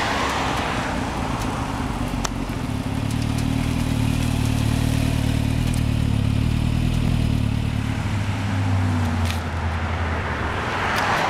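Motorcycle engine idling steadily, then shut off near the end. A noisy rush of passing traffic fades away in the first second.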